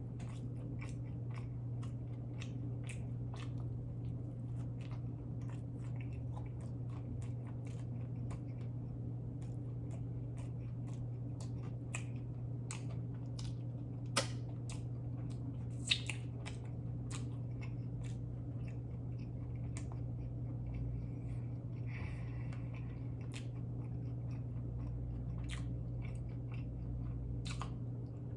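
Close-miked chewing and biting of food, with many small wet mouth clicks and smacks over a steady low hum; two sharper clicks stand out a little past the middle.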